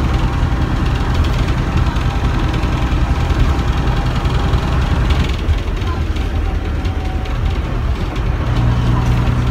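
Rear-mounted Leyland O.680 diesel engine of a Bristol RELL6L single-deck bus running under way, heard from inside the saloon as a steady low drone. Its note eases off about five seconds in and picks up again near the end.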